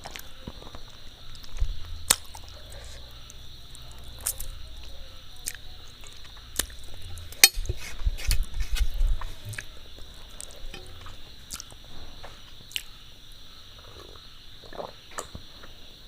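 Close-miked eating sounds: irregular wet mouth clicks and smacks while chewing a meal of rice and fish curry, over a steady high hiss.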